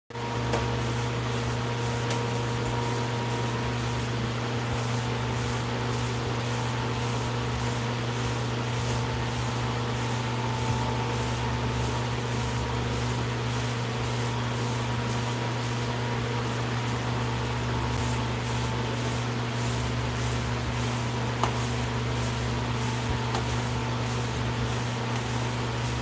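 Steady low electrical hum with an even hiss behind it, unchanging throughout.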